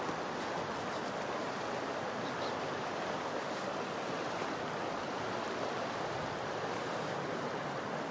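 River water rushing: a steady, even noise with no change in level.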